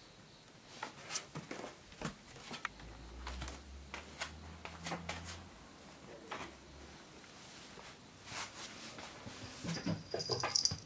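Irregular soft knocks and creaks of footsteps and handling on the wooden floor and stairs of an old house, with a brief high squeak near the end.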